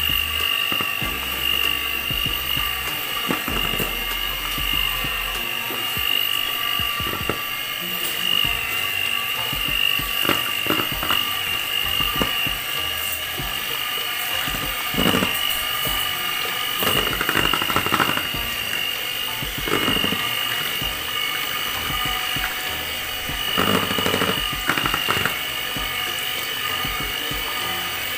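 Electric hand mixer running steadily with a high-pitched whine, its beaters whisking flour, eggs and coconut milk into a thin pancake batter in a plastic basin. Occasional short louder rattles come through the whine.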